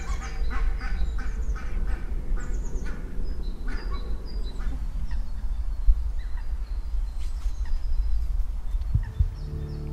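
Waterfowl calling, rapid runs of short honking calls that thin out after about four seconds, over a steady low rumble. A low steady tone comes in near the end.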